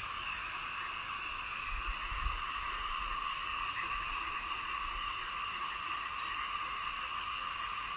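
A steady, unbroken chorus of calling creatures in the field, holding two unchanging high pitches.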